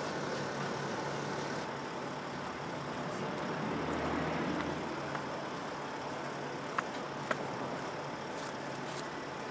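City street traffic: a steady wash of road noise with a low engine hum, swelling briefly a few seconds in, and two sharp clicks a little over halfway through.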